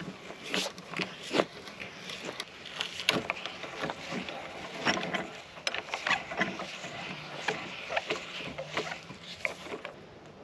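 Hand-turned auger bit boring through a pine board: an irregular run of clicks and scrapes as the bit cuts wood and lifts shavings, stopping just before the end.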